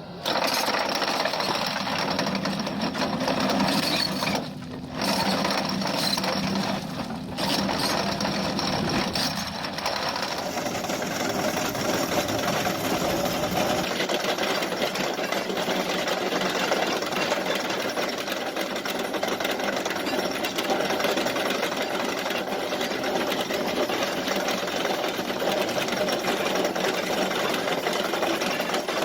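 Excavator-mounted chain cutter grinding into rock: a loud, dense, rapid rattling grind. It breaks off briefly about five and seven seconds in, and loses its low rumble about halfway through.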